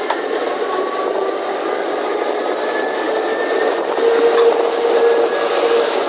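Moving passenger train heard from an open carriage doorway: a loud, steady rumble of wheels on rails, with a thin steady whine that grows louder about four seconds in.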